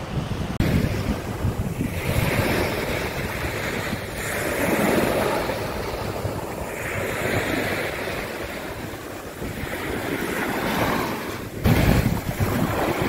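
Surf washing on a beach, the noise of the waves swelling and fading every two to three seconds, with wind buffeting the microphone, strongest at the start and picking up suddenly near the end.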